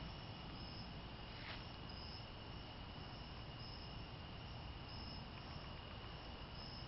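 Night insects calling faintly: a steady high trill with a short, higher chirp repeating about every second and a half.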